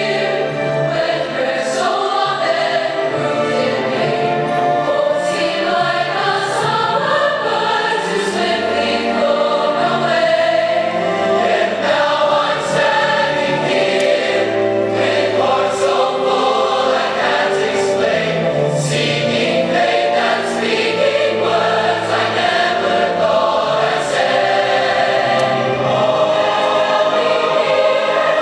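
A choir singing, many voices holding notes together in a continuous passage.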